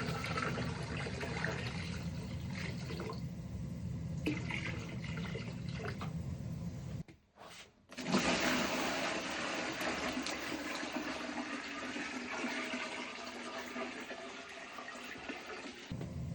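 Rushing, churning water, broken by a sudden drop to near silence about seven seconds in. A low hum runs under it before the break and comes back near the end.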